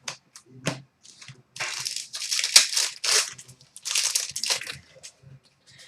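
A hockey card pack's foil wrapper being torn open and crinkled in two long rustling stretches, after a couple of light clicks.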